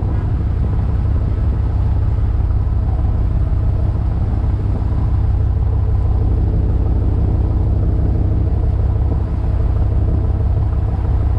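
A fishing boat's engine running steadily under way: a loud, even low rumble with a constant hum above it, holding the same pitch throughout.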